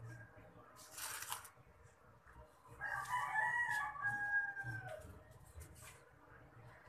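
A rooster crowing once, a call of about two seconds that drops in pitch at its end. A brief rustle comes about a second in.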